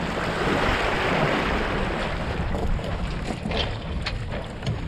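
Wind buffeting the microphone over the rush of water along the hull of a small sailboat under sail, with a few short sharp sounds near the end.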